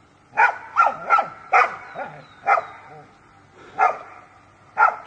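A dog barking at a bear: about seven short, sharp barks, a quick run of four in the first two seconds, then spaced out.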